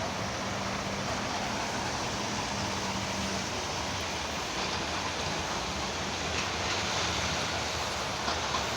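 A heavy machine's engine running steadily under a constant rushing noise, with a low hum that holds for the first few seconds and then fades back.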